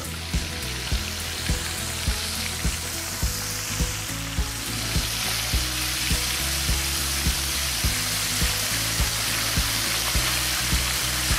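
Whole black sea bass frying in hot oil in a wok: a steady sizzle that grows a little stronger about halfway through. A regular low beat, about two a second, runs underneath.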